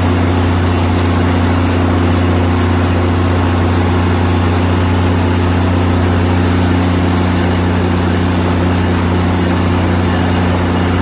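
Loud, steady engine hum of an idling locomotive at a station platform: a deep drone with a few low steady tones over an even rushing noise, holding one level without rising or falling.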